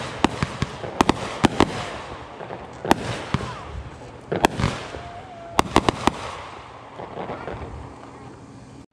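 Boomin Bulldog 'Live Free Or Die' aerial firework going off: sharp bangs and pops of shells firing and bursting at irregular intervals, clustered at first and again about halfway through. The bangs then thin out and the sound fades as the item finishes.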